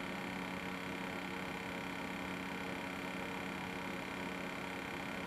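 Smith Corona PWP220 word processor running with a steady electrical hum and whir while its 2.8-inch floppy drive tries to read a disk.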